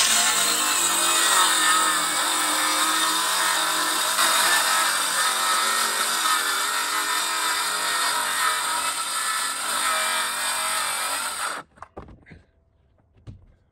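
A power tool running steadily at full speed with a whine, cutting off suddenly about eleven and a half seconds in, followed by a few faint knocks.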